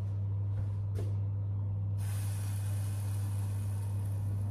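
Pasta being drained at the kitchen sink: after a couple of light knocks, water starts pouring through a metal colander about two seconds in and hisses steadily on. A steady low hum runs underneath.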